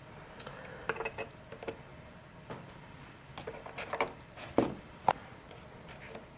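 Scattered light clicks and taps of handling: a steel square being moved off a molded glider wing panel and fingers pressing a small wing servo into place in its bay. The two loudest taps come about four and a half and five seconds in.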